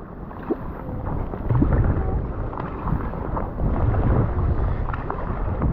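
Wind buffeting the microphone over water sloshing and splashing around a kayak in choppy waves, getting louder about one and a half seconds in.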